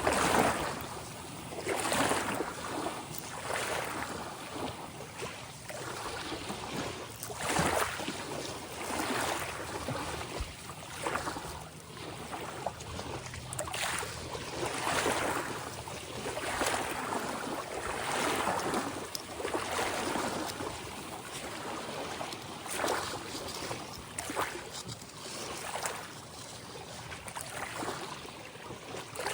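Ocean waves breaking and washing onto the shore, a fresh surge of surf every second or two.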